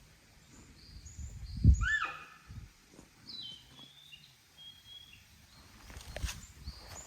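A sika deer gives one shrill, whistling call ("hyuun") about two seconds in, rising and then falling in pitch, just after a low thump. Small birds chirp faintly at a high pitch, and there is a sharp click near the end.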